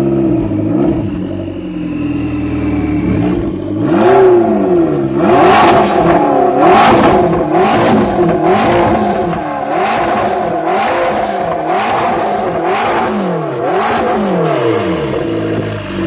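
McLaren 650S twin-turbo V8 idling for the first few seconds, then revved in quick blips about once a second, its pitch climbing and dropping each time.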